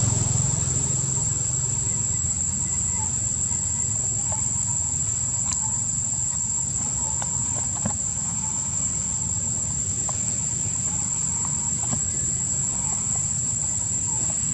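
Steady, high-pitched drone of forest insects holding one pitch, over a low, steady rumble, with a few light scattered clicks.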